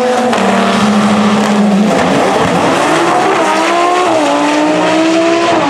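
Drag cars, one of them a twin-turbo Audi R8, held at steady revs on the start line, then launching about two seconds in. The engine pitch climbs, then drops at upshifts about four seconds in and again near the end.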